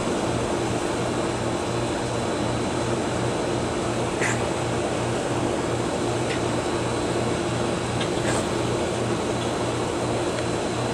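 Steady machine hum and whir, with a low throb pulsing at an even rhythm and a few faint ticks.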